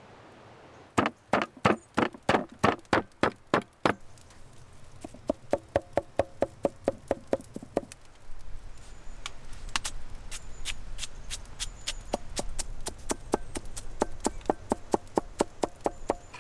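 A large knife chopping against a wooden board in quick, even strokes, about three to four a second, in three runs. Some strokes in the middle run carry a faint ring. From about halfway the chopping goes on over a steady low background noise, the blade cutting onion into minced meat on a log-slice board.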